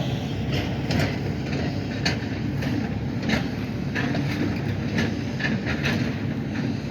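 An engine running steadily with frequent short rattles and knocks over the top.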